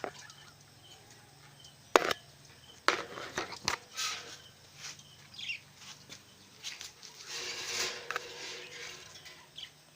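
Budgerigars chirping and calling in a breeding colony, broken by several sharp knocks and clicks, the loudest about two seconds in, with a short rustle near the end.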